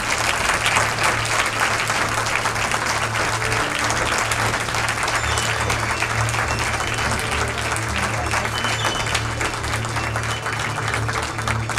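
Audience applauding, a dense crackle of clapping starting right at the opening, with music still playing underneath.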